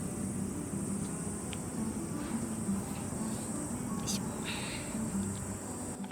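Steady high-pitched chorus of insects trilling at dusk, with a few short faint chirps about two-thirds of the way in.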